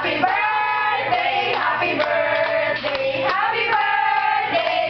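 A group of people singing a birthday song together in unison, with long held notes.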